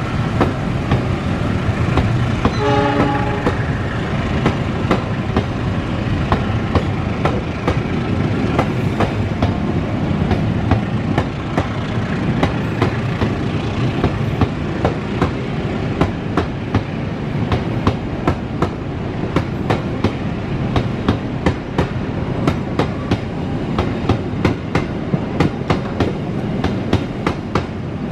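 Passenger coaches of a departing train rolling past with a continuous rumble, the wheels clacking over rail joints, the clacks coming more often in the second half as the train gathers speed. A short horn sounds about three seconds in.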